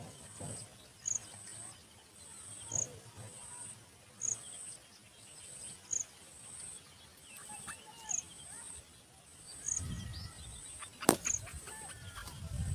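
Insects chirping in a steady rhythm, short high chirps repeating about every second and a half over a pulsing high buzz. A single sharp click comes about eleven seconds in.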